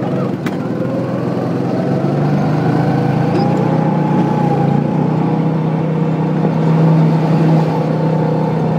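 Go-kart engine running steadily at speed, heard from the driver's seat, with a short click about half a second in.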